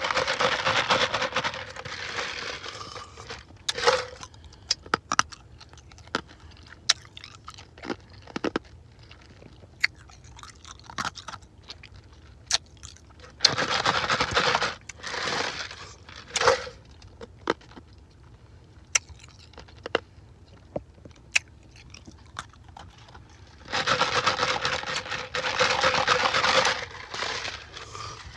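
Ice being chewed and crunched in the mouth: three stretches of loud, dense crunching, with scattered single sharp cracks between them.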